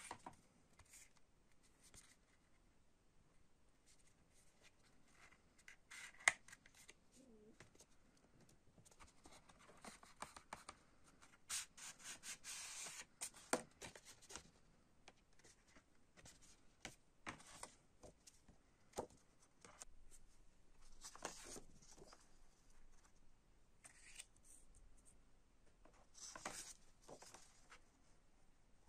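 Quiet handling of paper and card: sheets and cards sliding against each other and being leafed through, in scattered soft rustles. There is a sharp tap about six seconds in and a longer rustle about halfway through.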